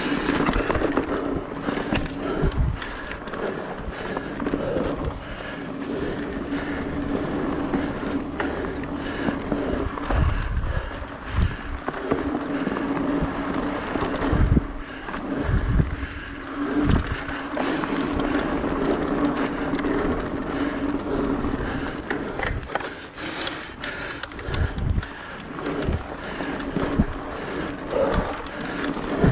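Mountain bike rolling along a dirt singletrack trail: tyres running on packed dirt and leaves with a steady hum and rattle, broken by short low thumps as the bike goes over bumps.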